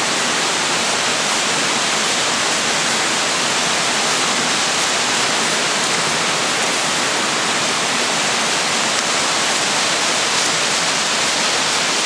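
Steady rushing of a waterfall.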